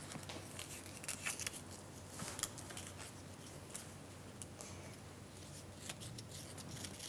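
Faint, scattered light clicks and taps of hands and utensils working at a sushi-making counter, over a low steady hum.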